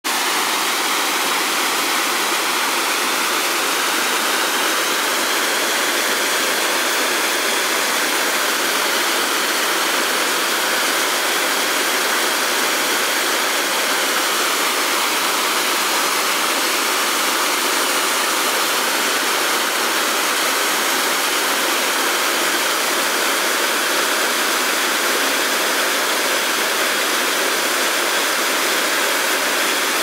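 Small waterfall pouring over mossy rock ledges and splashing into a shallow plunge pool: a steady rush of water, mostly high with little deep rumble.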